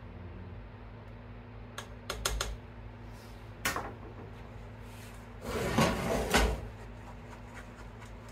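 Coil whisk clinking and knocking against a pot while stirring scrambled eggs. A little past halfway comes a louder, longer metal clatter and scrape as the pot is slid across the gas stove's cast-iron grate.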